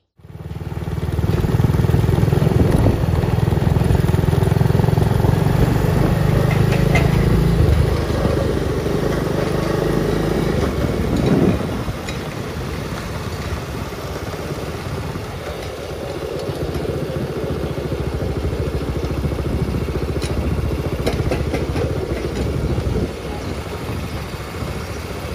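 Motor scooters riding along a road: steady engine and road noise, loud for the first several seconds and quieter after about twelve seconds.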